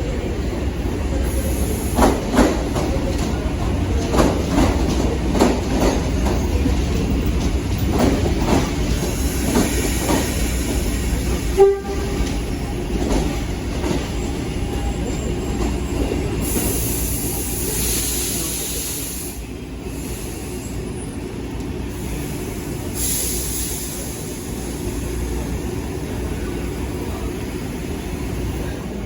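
SuperVia electric commuter train moving along the platform: a steady rumble, with wheels knocking over rail joints in a run of clacks during the first ten seconds. One loud clank comes about twelve seconds in. Later there are spells of high hiss over the continuing rumble.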